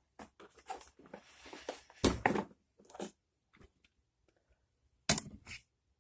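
Hand-handling noises as a lawn mower's lower handle is pushed into its mounts: light clicks and a scraping rustle, with two sharp knocks, about two seconds in and again about five seconds in.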